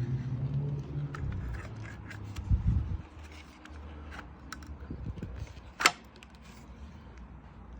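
Handling sounds: scattered small clicks and scrapes, with one sharp click about six seconds in. A low rumble with a dull thump fades out about three seconds in.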